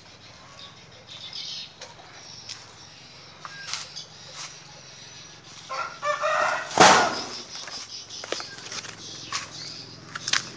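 A bird's short call of a few quick notes about six seconds in, followed at once by a loud, brief burst of rustling, with scattered light clicks and taps throughout.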